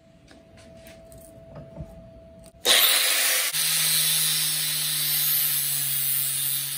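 Angle grinder with a cutoff wheel cutting through knife handle pins. It starts suddenly just under three seconds in and runs on as a loud, steady hiss over the motor's hum. A few faint clicks come before it.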